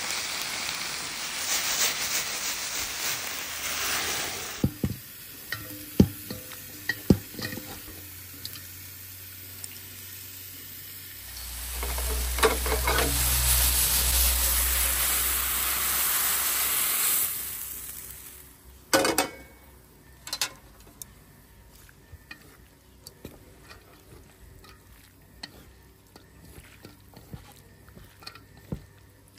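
Sliced pork and vegetables stir-frying in a pan: sizzling, with sharp knocks of the utensil on the pan, then a louder stretch of sizzling as onions, carrots and green onions fry. Toward the end, only quiet clicks as chopsticks toss the fried vegetables in a stainless steel bowl.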